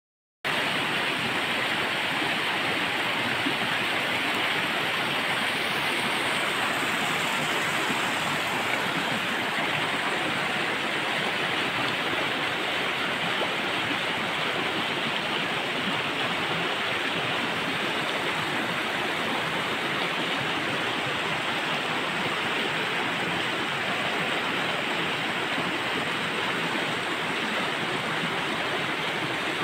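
A water stream flowing steadily, an even rushing of water with no break.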